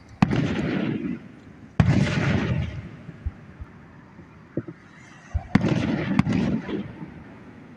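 Aerial fireworks exploding: four sharp bangs, two close together near the start and two more about two-thirds of the way in, each trailing off in about a second of rumble.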